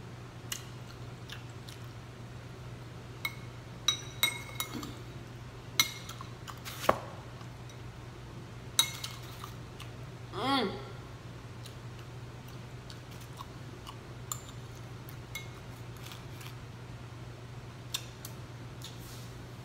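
A metal spoon clinking and scraping against a ceramic bowl in about a dozen sharp, scattered clicks, with eating sounds between them. About ten and a half seconds in comes a brief voiced 'mm'. A low, steady hum runs underneath.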